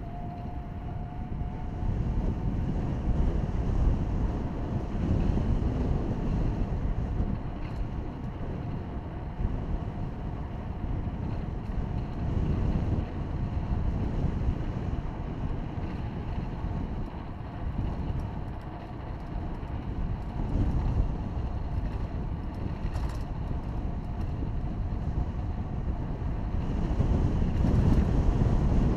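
Wind buffeting the microphone of a camera moving along a paved road, a heavy, uneven low rumble that swells and fades, louder near the end. A faint steady whine sits under it for the first couple of seconds.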